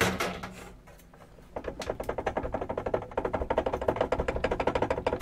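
A circuit card being worked out of an edge connector in a card cage: a sharp knock, then after about a second and a half a rapid, even chatter of clicks as the board slides out along its guides.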